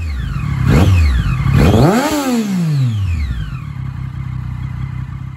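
Motorcycle engine revved twice. The second rev climbs higher and falls away over about a second, then the engine settles into a steady idle.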